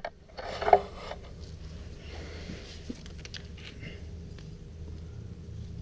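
Faint handling noises as a spade connector is pushed back onto the terminal of a new oil pressure switch on a BMW airhead boxer engine, with a short louder rustle about half a second in and scattered light scrapes and clicks over a steady low hum.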